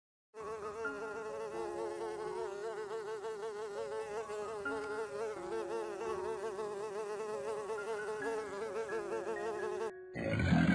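Bee buzzing in a steady, wavering drone that stops abruptly near the end.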